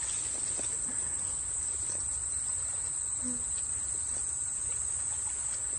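Insects trilling in one steady, unbroken high-pitched buzz, with a faint low rumble underneath.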